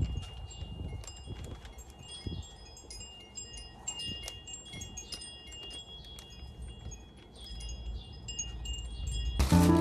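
Wind chimes ringing on and off, a scatter of clear high notes at several different pitches, over a low rumble. Background music comes back in near the end.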